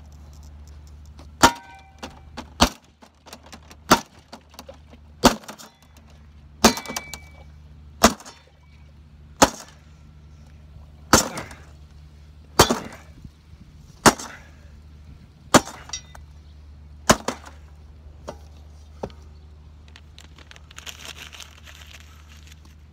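A spade smashing a glass-fronted picture frame lying in the grass: about a dozen hard strikes, roughly one every one and a half seconds, each a sharp crack with a brief metallic ring. Near the end comes a soft brushing, as hands are rubbed together.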